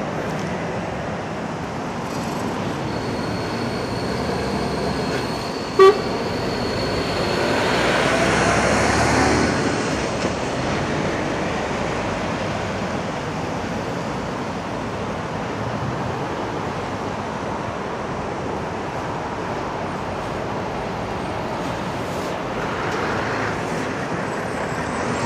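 Road traffic of lorries, cars and vans moving off and passing close by, a steady run of engine and tyre noise that swells as a heavier vehicle goes past around eight to nine seconds in. A short, sharp horn toot sounds once about six seconds in.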